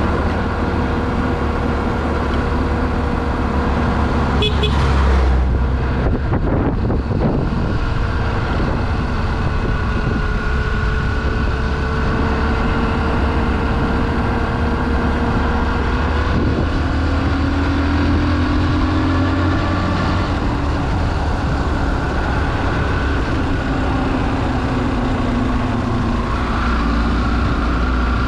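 A vehicle's engine running with road noise while driving, the engine note drifting slowly up and down with speed. A few knocks come about 4 to 7 seconds in.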